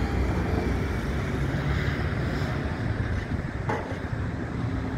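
Cars driving past on the road, a steady rush of engine and tyre noise.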